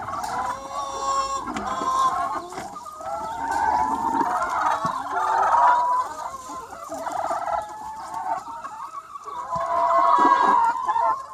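A large free-range flock of chickens clucking and calling, many hens overlapping in a constant chatter.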